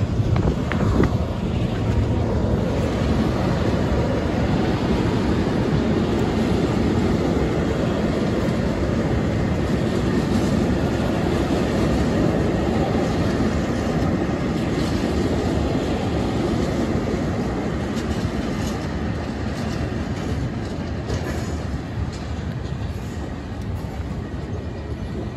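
Long freight train of open wagons rolling past: a steady rumble and clatter of wheels on the rails, easing off near the end as the train draws away.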